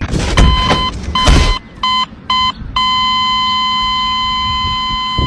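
A steady mid-pitched electronic beep, sounded four times briefly and then held as one long unbroken tone. Two loud, harsh bursts of noise come with the first two beeps.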